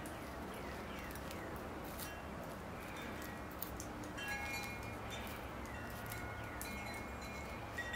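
Faint light clicks and scrapes of steel tweezers picking weeds and liverwort out of moss and soil, over a low steady hum, with a few faint high chirps midway.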